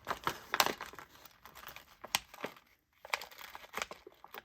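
Crinkling rustles and scattered light clicks of small parts and their packaging being handled, busiest in the first second, with a brief lull about three seconds in before a few lighter ticks.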